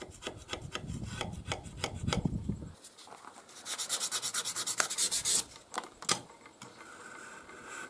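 Aluminium plate edge being rubbed back and forth on sandpaper by hand, about five quick strokes a second. The strokes turn brighter and hissier about halfway through.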